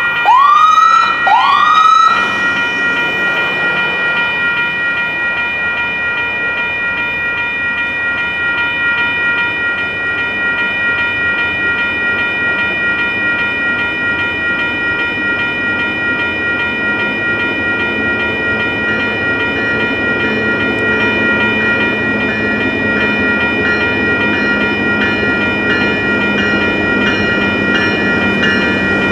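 Two or three rising siren whoops about the first two seconds, then steady high ringing tones. Under them the rumble of an approaching Norfolk Southern freight locomotive grows louder over the second half.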